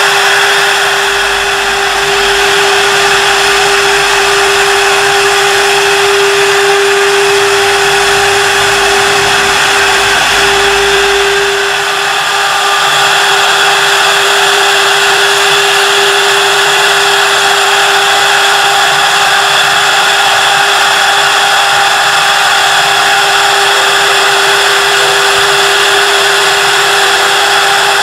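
Two-spindle CNC wood lathe running, its knives cutting the spinning wooden blanks: a steady motor whine over a constant rush of cutting noise. A low rumble underneath drops away about twelve seconds in.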